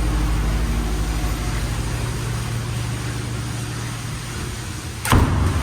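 A steady low engine hum that gradually fades, broken near the end by a sudden sharp thump.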